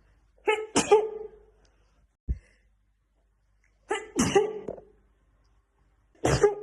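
A woman sneezing three times in a sneezing fit, each sneeze a short voiced 'ah' run straight into a sharp 'choo', a few seconds apart, with the third starting near the end. A brief soft low thump falls between the first two.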